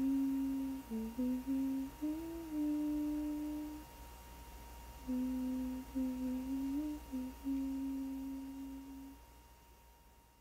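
A person humming a slow melody in two phrases, each ending on a held note.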